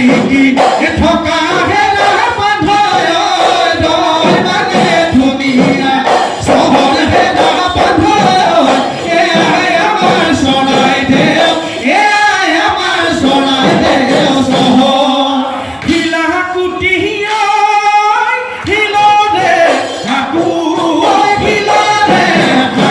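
A husori troupe of men singing a Bihu song together, with dhol drums beating along.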